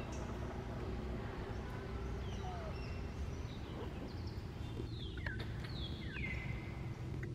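Outdoor ambience: a steady low rumble with scattered short, high chirping calls. Several of the calls glide downward in pitch, bunched together about two-thirds of the way through.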